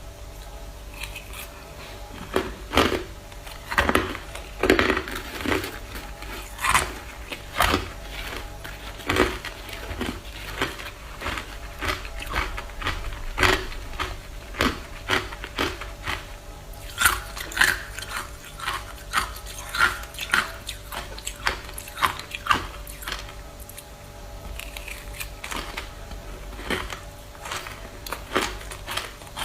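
Ice being bitten and chewed up close: a run of sharp, irregular crunches, one or two a second, thinning out near the end.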